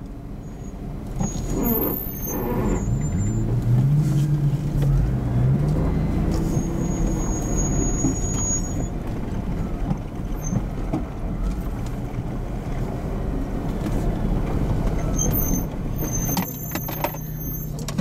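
Off-road 4x4's engine running and revving, its pitch rising a few seconds in, with brief high squeaks in the middle and a cluster of knocks and rattles near the end.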